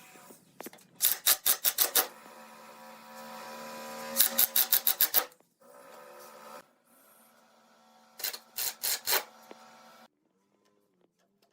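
Three bursts of rapid, evenly spaced rasping strokes, about six a second, from a hand tool worked back and forth on wood, over a faint steady hum. The sound cuts off shortly before the end.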